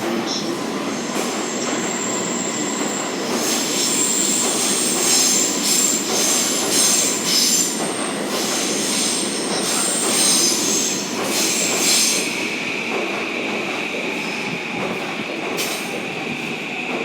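Passenger train running along the rails past a station platform: steady wheel-and-rail rumble with shrill, wavering wheel squeal. About two-thirds through, the squeal settles into one steady high note.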